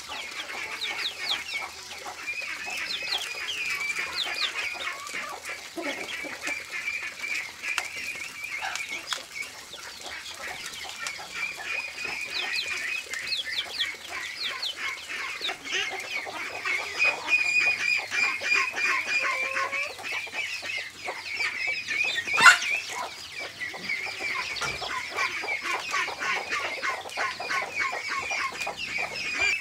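Chickens clucking and calling over a steady crackle of dried corn kernels being stripped by hand from the cob into a woven bamboo basket. One sharp, louder click about three-quarters of the way through.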